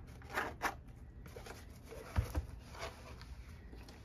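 Zipper being pulled around a small zippered hard-shell travel case for a dive computer, in a few short rasps with some fainter scraping, then a dull thump about two seconds in as the case is opened.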